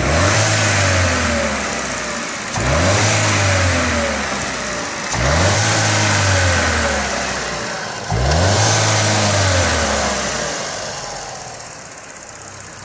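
2019 Vauxhall Mokka X's 1.4-litre turbo petrol four-cylinder engine blipped four times from idle, each rev rising sharply and then winding slowly back down, settling to idle near the end. It sounds healthy as can be, with no knocks or rattles.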